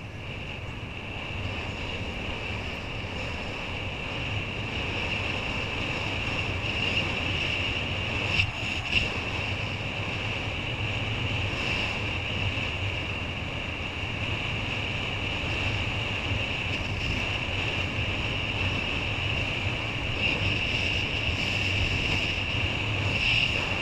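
Wind rushing over the camera microphone and water hissing under a kiteboard riding across the sea, with a steady high whine throughout. Two short sharp knocks come about eight and a half seconds in.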